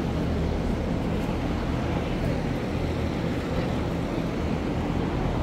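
Steady low rumble and hiss of wind buffeting the microphone, with no other distinct event.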